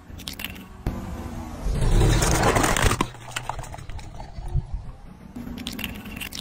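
Car tyre on gritty asphalt among crushed plastic toy pieces, scraping and crunching with scattered sharp clicks. There is a louder, rumbling stretch of tyre noise about two seconds in.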